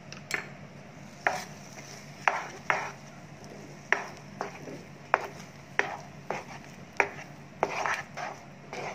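A slotted spatula scraping and knocking against a nonstick pan while stirring thick, cooked rava kesari to mix in ghee: a dozen or so short, sharp strokes at an uneven pace, about one or two a second.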